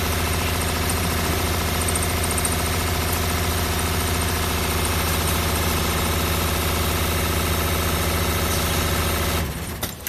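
Six-spindle CNC needle winding machine running at high speed, winding wire onto brushless motor stators with a steady mechanical hum. The sound falls away near the end as the machine stops.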